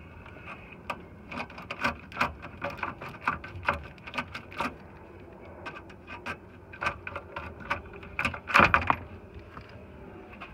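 A 7mm socket wrench turning out screws from a plastic dash panel: irregular clicks and small knocks of tool and plastic, with a louder rattling cluster about eight and a half seconds in.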